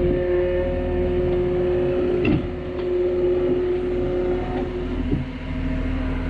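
Small tractor's engine running steadily, its pitch dipping briefly and recovering about two seconds in as it takes on load.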